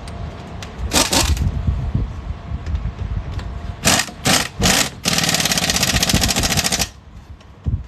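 Impact wrench fitted with a 140 lb torque stick driving wheel lug nuts: a brief burst about a second in, three quick bursts near four seconds, then about two seconds of steady rapid hammering that stops near seven seconds.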